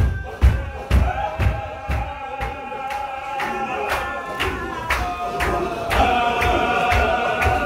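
Men chanting a Qadiri zikr together in long held notes, over the rhythm of their stamping steps as they circle, about two beats a second. The stamps are heaviest in the first second or so and grow heavier again near the end.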